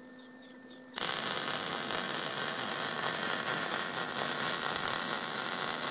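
MIG welding arc on 3/16 inch steel plate, struck about a second in and then running as a steady, crackling hiss. The machine is turned down to voltage setting C and just under 3 on wire speed, so this cooler pass runs along the edge of the plate to narrow a wide gap.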